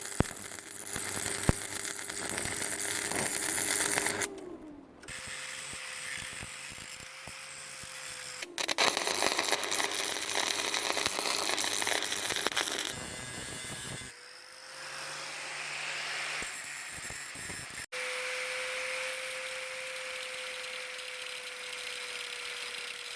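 Angle grinder working steel in two long loud bursts; about four seconds in, its motor whines down as it is released. Between the bursts there is a steady hum.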